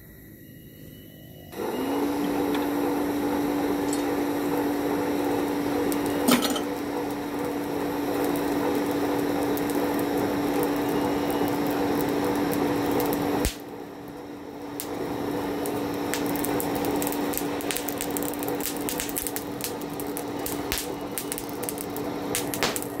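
Electric power tool motor running with a steady hum, cutting out abruptly about halfway through and building back up a second or two later. Scratchy high clicks come through near the end.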